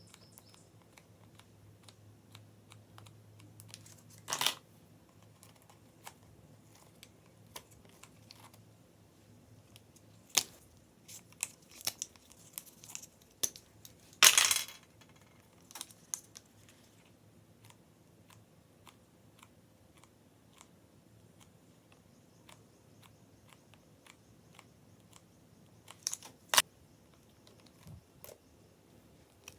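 Hands handling slime and paint containers: scattered small clicks and taps, with a few louder brief crinkly noises, the loudest lasting about half a second about halfway through.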